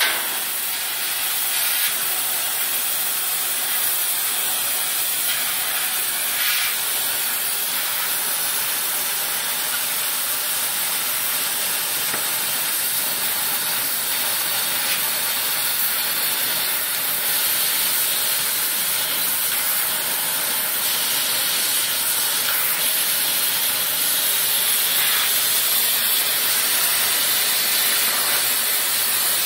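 MultiPro LCM 2500 laser cutting machine cutting sheet metal, a steady hiss with only small rises and dips in level.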